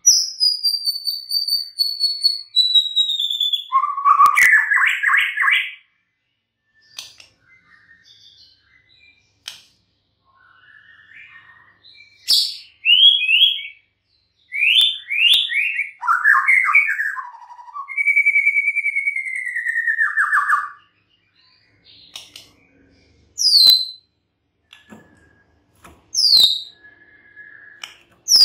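White-rumped shama (murai batu) singing: separate phrases of clear whistles and fast trills with pauses between. It opens with a long falling whistle, holds a long slightly falling whistle mid-way, and gives sharp high downward-sweeping notes near the end, with a few sharp clicks between phrases.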